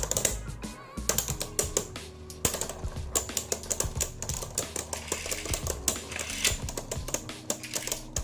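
Background music with many quick, irregular clicks and rattles of small hard parts being handled, likely the plastic parts of a Beyblade top.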